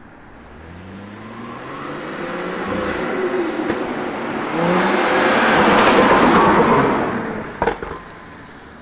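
Turbocharged N55 inline-six of a BMW 335i, with a catless downpipe and stock catback exhaust, accelerating hard: the engine note climbs in pitch, drops at a gear change and climbs again, getting louder as the car comes close and then fading. A few sharp exhaust pops near the end.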